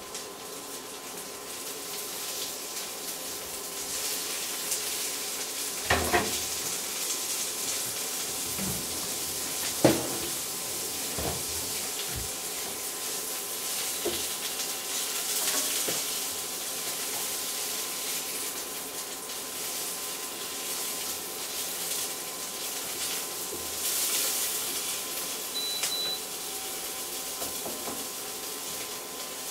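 Merguez sausages and diced onion sizzling steadily in a de Buyer iron frying pan. A few sharp knocks and scrapes of a wooden spatula against the pan come in the first half, the loudest two at about six and ten seconds in, as the food is turned and stirred.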